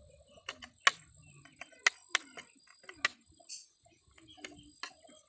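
A metal spoon clinking against a plate while stirring chopped chilies in vinegar: several sharp clinks over the first three seconds, over a steady high whine in the background.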